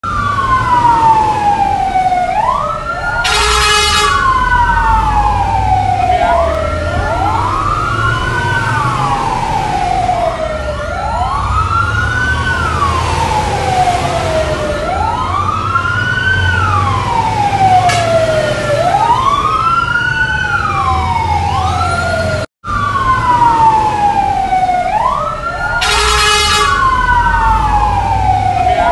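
Two or more fire-truck sirens wailing together, each rising quickly and falling slowly about every three seconds, over the low rumble of truck engines. A short blaring horn-like tone cuts in twice, a few seconds in and again near the end, and the sound drops out for an instant about three-quarters of the way through.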